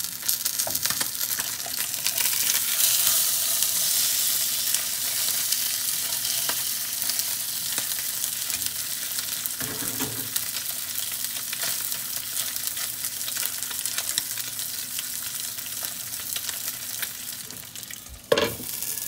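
A whole sea perch and garlic cloves frying in oil in a nonstick pan, sizzling steadily, with a few light knocks as the fish is moved with chopsticks. Near the end a glass lid clacks down onto the pan, loudly and once.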